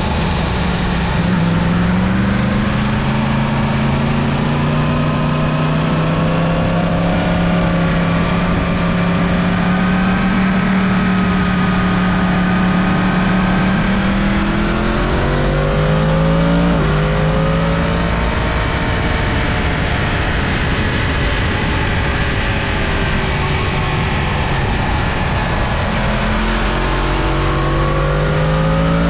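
Yamaha FZ-10's crossplane inline-four engine running under way, over a steady rush of noise. Its pitch holds, then climbs past the middle as the bike accelerates, drops suddenly at a gear change, and climbs again near the end.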